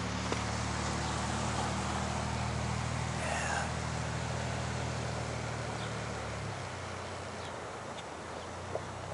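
A vehicle engine running steadily with a low hum, which drops away about six and a half seconds in, over a steady hiss.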